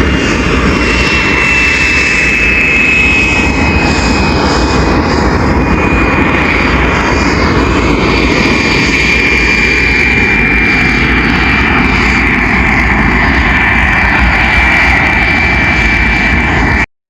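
Aeroplane jet engines running with a loud, steady rush and a high whine that falls slowly in pitch; the sound cuts off abruptly near the end.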